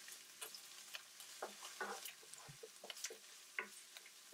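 Wooden spoon stirring and tapping in a nonstick pan while chopped onion, ginger and garlic fry in oil: a faint sizzle with scattered light taps and scrapes.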